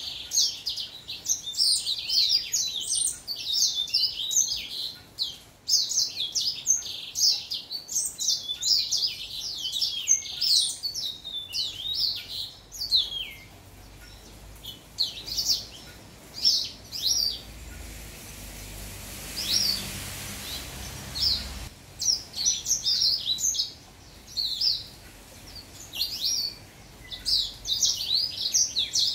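Young house finch singing: long, warbling runs of quick, high notes broken by short pauses. About halfway through the song thins to scattered phrases while a soft rushing noise with a low rumble swells and fades, then the full warbling resumes.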